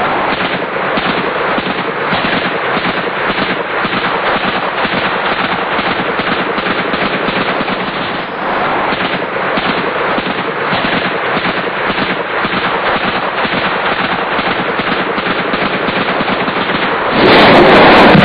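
Sustained automatic weapons fire: long runs of rapid machine-gun shots, one after another. It becomes louder and heavier about a second before the end.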